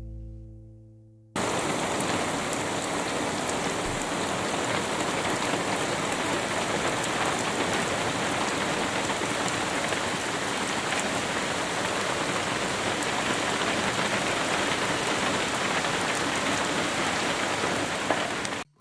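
Steady rain falling: a dense, even patter that cuts in suddenly about a second in and stops abruptly just before the end.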